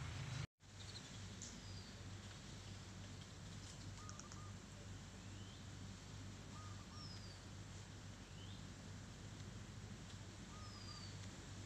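Faint outdoor ambience: a few scattered bird chirps and short sliding whistles over a steady low hum, with the sound cutting out for an instant about half a second in.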